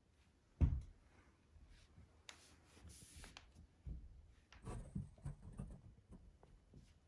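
Close-up rubbing and rustling of a puppy's fur, plush bedding and paper towels against the microphone. There is a sharp thump about half a second in, and a run of soft bumps and rubs between about four and six seconds.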